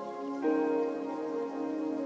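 Background music of slow, sustained chords, with a new chord coming in about half a second in.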